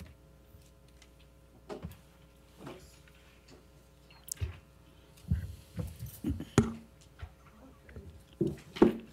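Faint steady hum of a quiet meeting room, with scattered soft knocks and thumps from people moving and handling things near the microphones, coming several in quick succession from about five seconds in.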